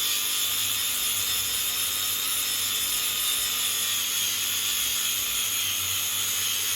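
A machine running steadily with a high, even whine over a hiss, without a break.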